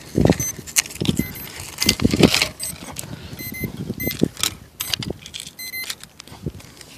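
Clicks, knocks and rattles of a crashed quadcopter's frame, broken arms and dangling wires being handled and set down on asphalt. The sounds come as an irregular string of sharp taps, louder in the first few seconds.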